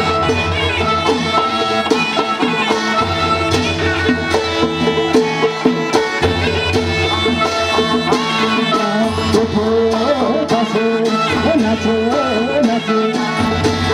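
Live Nepali panche baja folk music for dancing: a wavering, ornamented sanai (shehnai) melody over a steady drum beat.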